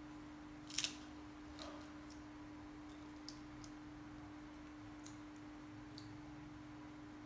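Small clicks and crackles as a young monkey picks at and eats lotus seed pods, the loudest a quick double click about a second in, then a few faint ticks. A steady low hum runs underneath.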